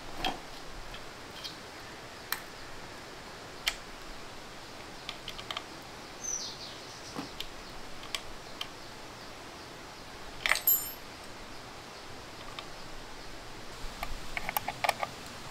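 Scattered light clicks and taps of small parts being handled, over a steady hiss. There is a short falling squeak about six seconds in, a brief cluster of clicks past halfway, and a quick run of ticks near the end.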